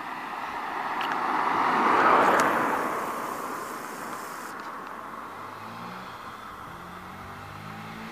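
A car passes close by, its tyre and engine noise swelling to a peak about two seconds in and then fading. From about halfway, the faint low note of a 2012 Honda CBF125's single-cylinder four-stroke engine is heard as the motorcycle approaches.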